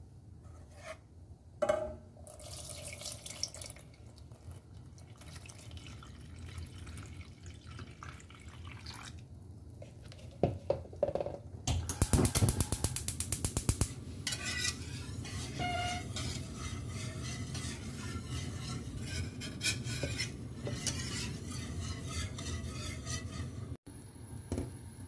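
Water poured into a saucepan of powdered pudding mix, then a wire whisk beating the mixture and rattling fast and evenly against the pan for a couple of seconds about halfway through. The whisking and stirring go on more steadily afterwards, with a wooden spoon stirring the liquid near the end.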